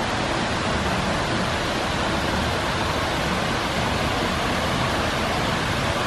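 Steady, even rushing noise with no pitch to it.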